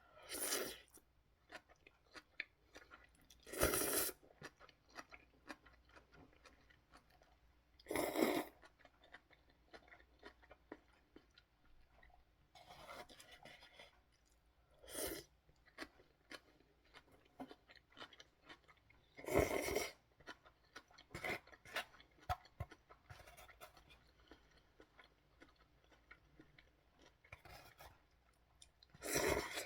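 A person eating beef ramen close to the microphone: quiet chewing and crunching with small clicks, broken by about six louder slurps of noodles, each under a second, spaced several seconds apart.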